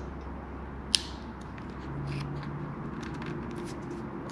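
Crimping tool for spark plug wire terminals clicking sharply once about a second in, then a few faint ticks as the terminal and wire are set in its jaws, over a steady low hum.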